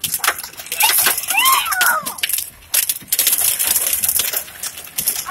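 Hailstones pelting a car's windshield and roof, heard from inside the car: a dense, rapid clatter of hard ticks, easing briefly about two and a half seconds in.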